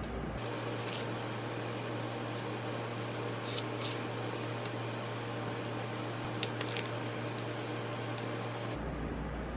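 Plastic rice paddle dabbing and pressing sticky cooked rice onto a sheet of roasted seaweed on a wooden board: soft, wet squishes and light taps at irregular intervals.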